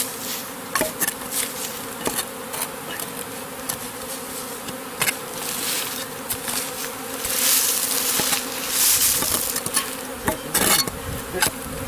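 Steady hum of a clustered honeybee swarm, with repeated scrapes and knocks of a shovel digging in soil and roots, and a longer scraping rush of dirt about seven to nine seconds in.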